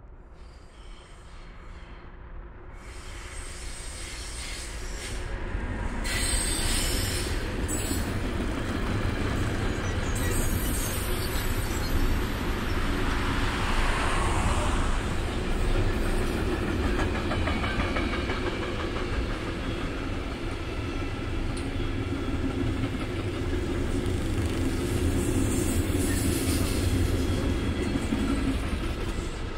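Freight train of covered sliding-wall wagons rolling past close by: a steady rumble with the clatter of the wheels on the rails. It builds up over the first few seconds and drops off near the end.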